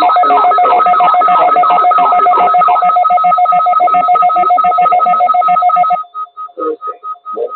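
NOAA Weather Radio alarm tone, sounded for the weekly test: two steady tones held together under a fast pulsing warble. It stops about six seconds in, and the higher tone then breaks up into short beeps.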